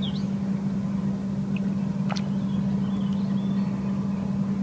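Steady low hum of a running engine, with faint bird chirps and one sharp click about two seconds in.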